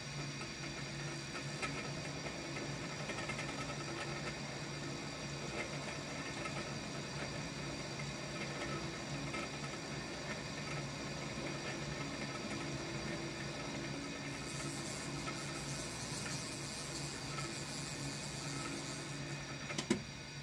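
The mill spindle of a Shoptask XMTC lathe-mill combo runs steadily with a boring head fitted, making a machine hum with several steady tones while the boring bar takes a test cut in an aluminium part. A brighter hiss joins about three-quarters of the way through, and there is one sharp knock near the end.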